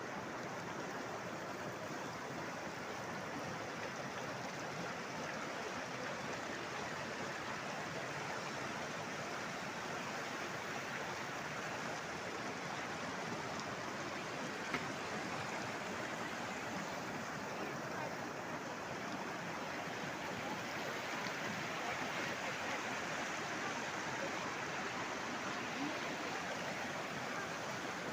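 Water of a Himalayan river rushing, a steady even noise that does not let up.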